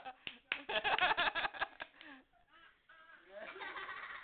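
Hearty laughter in a rapid run of ha-ha bursts lasting over a second, followed by quieter voice sounds.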